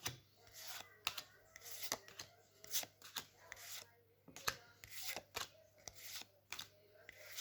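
Pokémon trading cards being handled, flipped and slid against each other, with irregular sharp flicks and short swishes.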